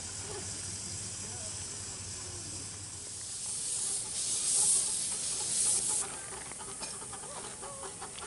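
Miniature steam locomotive venting steam: a high hiss that swells about three and a half seconds in, surges twice and cuts off sharply at about six seconds, over a steady lower hiss.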